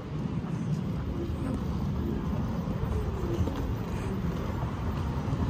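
City street ambience: a steady low rumble of road traffic.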